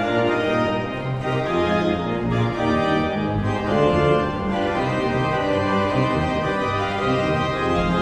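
Background organ music: sustained chords held and changing every second or so.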